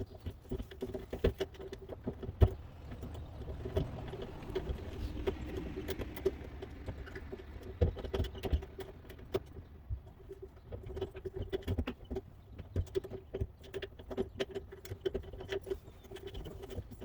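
Light metallic clicks and scrapes of lock-picking tools working the pins inside a front door lock, with one sharper click a little over two seconds in.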